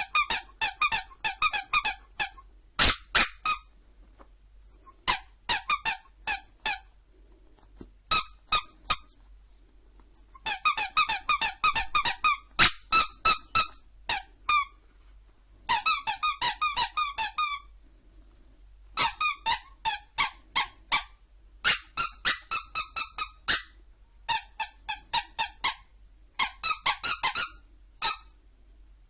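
Squeaky dog toy being squeezed over and over: runs of short, high squeaks, several a second, in bursts with brief pauses between them.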